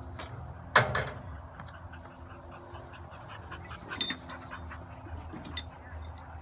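Steel plate-rack parts knocking together during assembly: a sharp knock about a second in, then a metallic clank with a brief ring about four seconds in.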